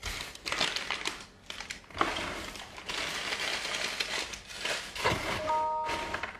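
Sheets of paper being crumpled by hand and packed into a cardboard box: continuous crinkling and crackling, with a couple of short pauses.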